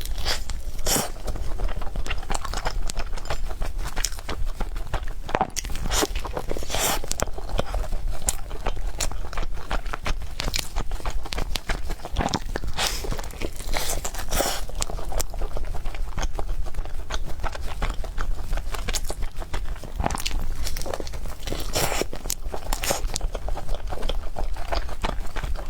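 Close-miked eating: repeated crunching bites and chewing, with many short, irregular mouth clicks.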